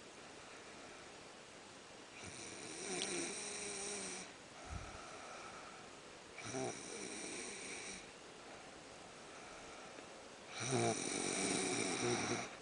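A sleeper snoring: three long, rasping snores about four seconds apart, the last one the loudest.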